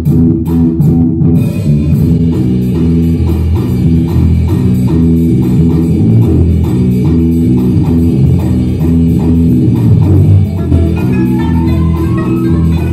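Live band music: a plucked string instrument over a steady bass line and drum kit. Sharp drum strokes come about three a second in the first second or so, then the sound fills out, and a run of rising notes enters near the end.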